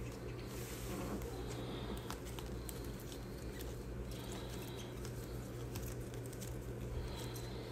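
Steady low electrical hum, with scattered light clicks and rustles from small handling movements.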